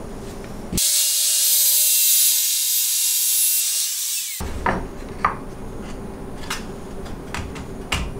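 Ryobi MTR-42 trim router running, a loud hissy sound with almost no low end that starts about a second in and cuts off abruptly about three and a half seconds later. After it come a few light wooden knocks as a test piece is pushed into the freshly routed groove.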